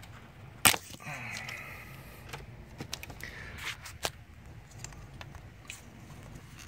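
One sharp click less than a second in, then several lighter clicks and taps: glow plug connectors and pliers being handled on the engine.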